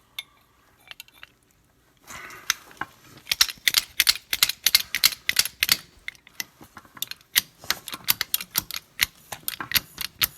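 A jack being worked by hand to lift the plumbing, giving a fast, irregular run of sharp mechanical clicks that starts about two seconds in.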